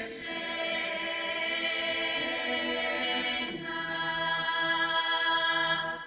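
A women's folk choir in Bulgarian costume singing unaccompanied in close harmony, on long held chords that shift about halfway through. The phrase ends about six seconds in and dies away.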